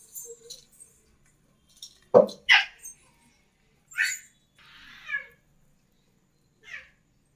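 A baby's short squeals and cries, about five separate calls sliding up and down in pitch, the loudest two coming close together a little over two seconds in.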